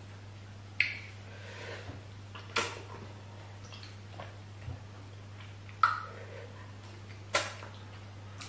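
Mouth sounds of eating banku with okra stew: four sharp, wet smacks from chewing and lip-smacking, one every one and a half to three seconds, with a few fainter ones between, over a steady low hum.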